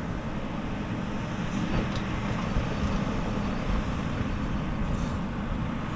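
Airbus A330's twin jet engines at takeoff thrust, a steady, rough low rumble as the airliner climbs away just after liftoff.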